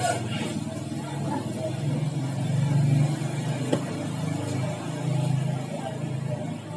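Low rumble of a running motor, like a vehicle engine, swelling about two seconds in and again around five seconds. One sharp click about three and a half seconds in.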